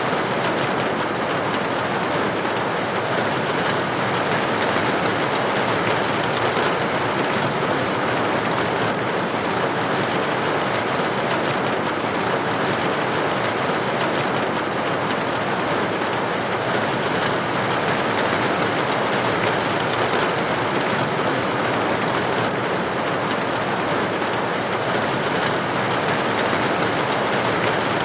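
Steady rain falling on a window pane, a dense even patter that holds at one level throughout.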